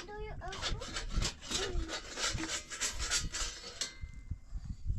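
Quick, repeated rasping or scraping strokes, several a second, with a voice talking over them; they stop about four seconds in.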